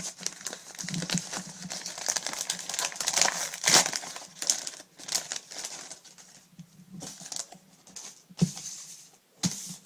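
Crinkling of the wrapping on a pack of Pokémon cards being opened by hand, dense crackles over the first five seconds, then sparser crackles with a few sharp clicks near the end.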